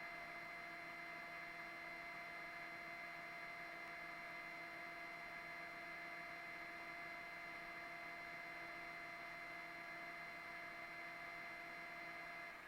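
High-pitched clock-noise whine from a Hotone Ampero amp modeler, a steady stack of fixed tones over hiss, heard through a high-gain patch with noise reduction off and the guitar volume at zero. It is the sign of the tightened volume-pot hex nut on the guitar; the whine cuts out at the very end as the nut is loosened, leaving only hiss.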